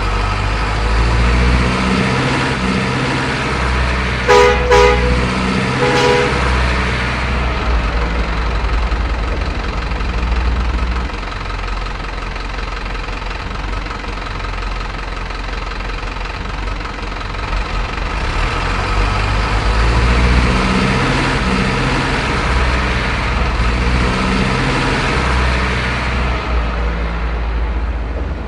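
Remote-control Hino truck running with a steady engine-like rumble and hiss. A horn gives a few short toots about four to six seconds in.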